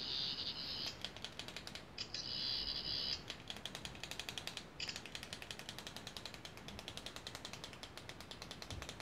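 Toy sonic screwdriver's electronic sound effects playing as its buttons are pressed. A high-pitched tone sounds in two short spells, then a rapid ratcheting buzz of fast, even ticks runs for the last six seconds or so.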